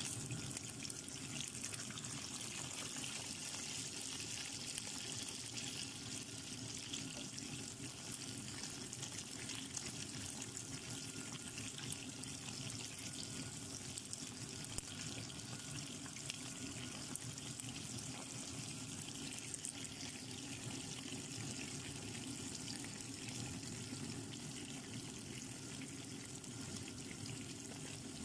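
Flour-coated chicken pieces deep-frying in hot oil: a steady sizzle with fine crackling.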